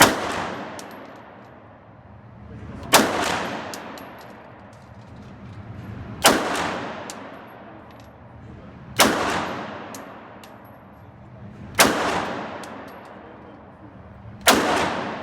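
Handgun fired six times at a slow, steady pace, about one shot every three seconds, each shot followed by a long echoing tail.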